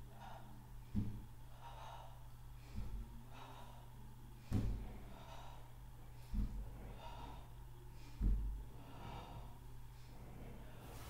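A person breathing hard in rhythm while doing a repeated Pilates abdominal exercise, with a dull low thump about every two seconds and a steady low hum underneath.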